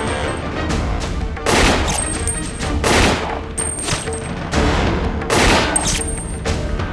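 Action-film soundtrack: a dramatic music score with sustained tones, cut by slowed-down gunshot blasts about every second and a half as bullets strike a man's body.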